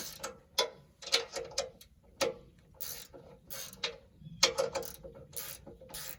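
Socket ratchet wrench clicking in short, irregular strokes with brief pauses, loosening a bolt on a sawmill's steel bunk.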